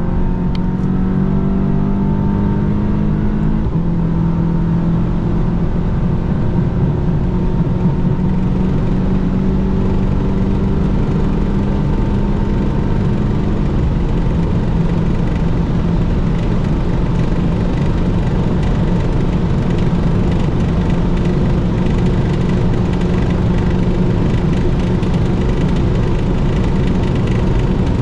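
Cabin sound of a tuned Volkswagen Jetta GLI's 2.0-litre turbocharged four-cylinder under full throttle at very high speed, its note climbing slowly and dropping back as it shifts up twice, from fourth to sixth gear. Heavy wind and tyre roar builds as the car nears its top speed.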